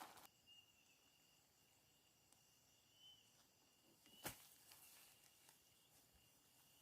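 Faint steady high trill of night insects such as crickets, swelling slightly every couple of seconds, with one sharp click about four seconds in.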